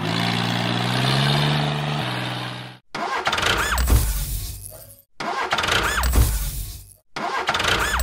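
Tractor engine sound, rising in pitch for about two seconds, then three short revving bursts about two seconds apart. Each burst starts suddenly and cuts off abruptly, like a repeated clip.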